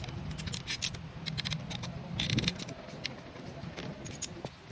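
Small metal parts clinking and scraping during hand work on a starter motor, with a short scrape a little over two seconds in.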